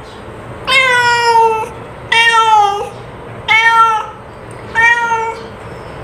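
Domestic cat meowing four times, about a second and a half apart. Each meow holds its pitch and drops slightly at the end, and the first is the longest.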